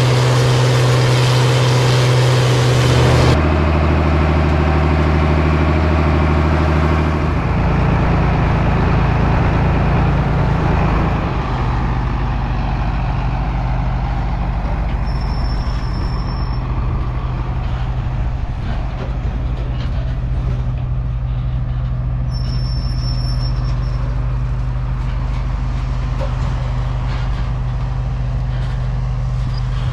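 Heavy diesel farm machinery running steadily at harvest, a deep engine drone whose note changes abruptly twice in the first eight seconds.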